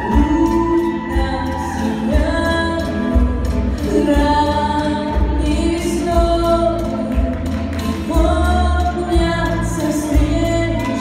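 Live band playing a Viennese waltz with a singer, the voice holding long notes over the band.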